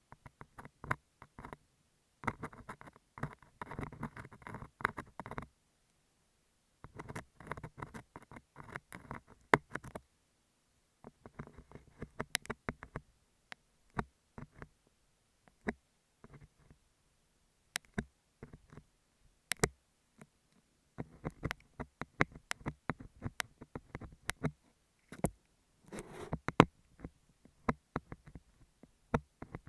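Ear pick scraping and rubbing on a beeswax sheet at an earphone microphone: crackly scratching in bursts of one to three seconds with short pauses between, dotted with sharp clicks.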